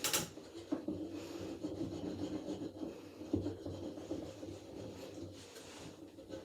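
Scrubbing and scraping on a dirty bathroom ventilation fan during cleaning, with a few sharper strokes, over a steady low hum.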